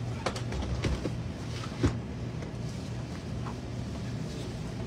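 A suitcase being lifted and pushed onto a train's overhead luggage rack, with a few light knocks and one louder thump about two seconds in, over a steady low hum in the train car.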